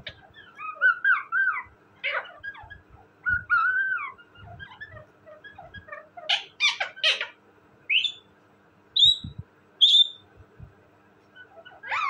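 Indian ringneck parakeet calling: a string of bending, whistly chatter calls in the first few seconds, a burst of harsh squawks about six seconds in, then a few short high chirps.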